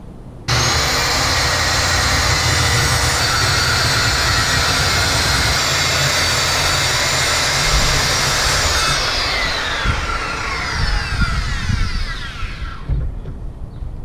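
Circular saw starting about half a second in and cutting through a wooden panel along a straightedge guide for about eight seconds, then released and winding down in a falling whine as the blade coasts to a stop.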